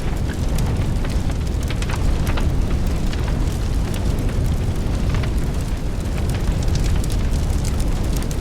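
A steady, heavy low roar with many sharp crackles scattered through it.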